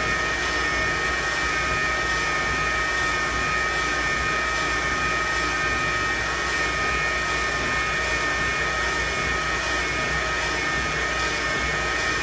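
CNC router running: a steady high spindle whine over an even machine hum, with no break or change.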